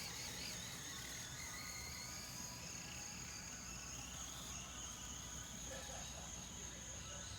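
Crickets chirping as a faint, steady high-pitched drone, with a fainter whine that slowly rises and falls beneath it.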